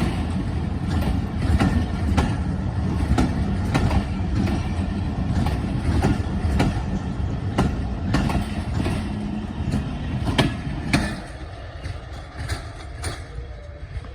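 Passenger train rolling past as it departs, with a heavy rumble and repeated clacks of wheels over rail joints. The rumble drops off sharply about eleven seconds in, leaving a quieter tail.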